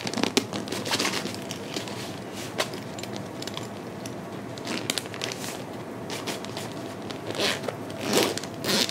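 Clear plastic packaging bag crinkling and crackling as it is handled and opened by hand, with scattered sharp crackles and louder rustling near the end.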